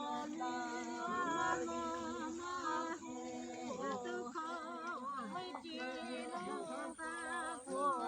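Unaccompanied voices singing a work chant, with held, wavering notes that change every half second or so.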